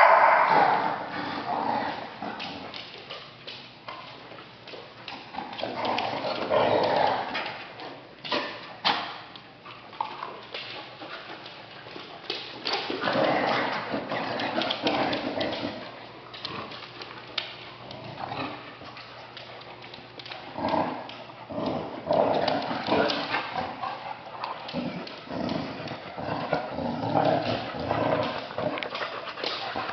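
Dogs play-fighting on a hardwood floor: a Clumber Spaniel and a Newfoundland puppy scrabbling and wrestling, with many claw and paw clicks on the wood and repeated short bursts of dog vocalising.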